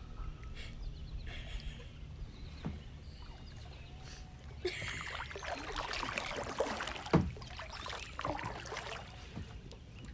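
Kayak paddle splashing and dripping in the water as she paddles, busiest in the second half, with a sharp knock about seven seconds in.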